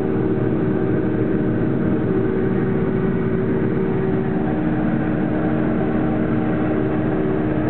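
Combine harvester running steadily while cutting winter wheat: a constant machine drone with several steady pitched tones, unchanging throughout.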